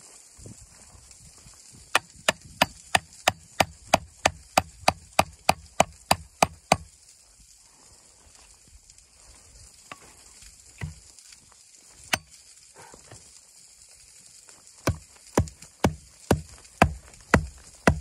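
Small hatchet chopping into a wooden board: a quick run of about sixteen sharp strikes, roughly three a second, then two single blows, then a second run of about seven strikes near the end.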